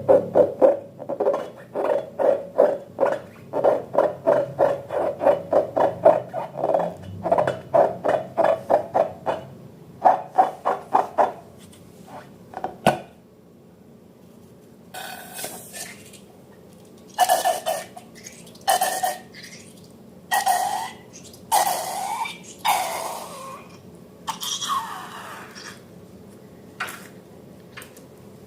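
Slime and rubber balloons being squeezed and worked by hand: quick squishy squelches, three to four a second, for about twelve seconds. After a short pause come several separate, louder and hissier squelches.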